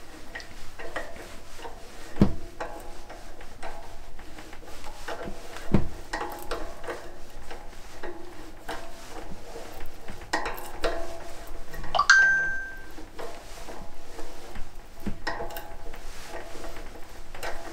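Thread being cut by hand with a tap turned in a tap holder into a metal bar held in a mill vise: irregular metallic clicks, creaks and scraping as the tap is worked round. There are two sharper knocks early on and a brief metallic ring about two-thirds of the way through.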